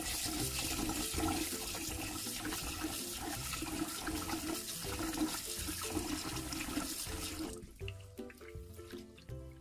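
Kitchen tap running into a glass bowl of rice in a stainless steel sink while the rice is washed by hand. The flow stops about three-quarters of the way in, leaving only faint splashing and dripping.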